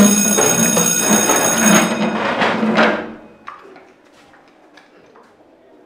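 Electric school bell ringing to mark the end of the lesson, stopping about two seconds in, over the scrape and shuffle of students getting up from their desks. After about three seconds it drops to faint footsteps and small knocks as the room empties.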